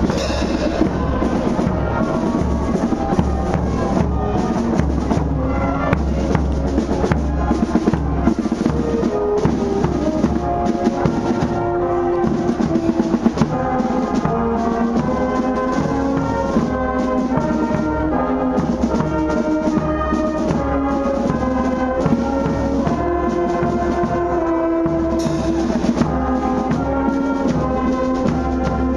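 Street brass band playing a tune together: trombones, trumpets and tuba.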